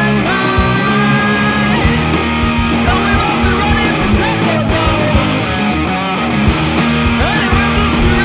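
Rock band recording with guitars playing at a loud, even level.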